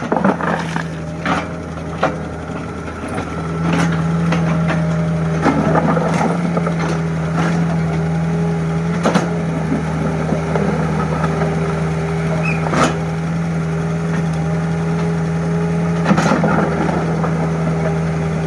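Mini excavator engine running steadily, getting louder about three and a half seconds in as it works, with scattered sharp metallic clanks and knocks.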